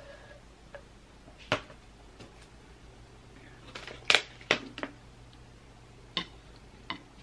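Sharp clicks and crackles from a thin clear plastic water bottle being handled and its screw cap twisted off. The loudest cluster comes about four seconds in, with a few more near the end.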